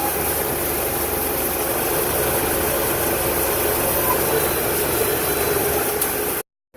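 CNC lathe running steadily while turning aluminum stock, a continuous machine hum and hiss with faint steady tones, which cuts off abruptly near the end.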